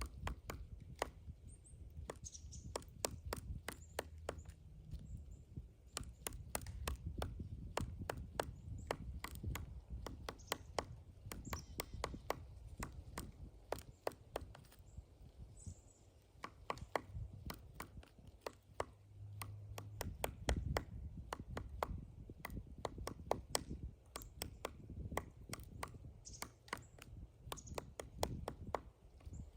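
Pileated woodpecker excavating a pine tree, its bill striking the wood in quick, irregular runs of sharp knocks.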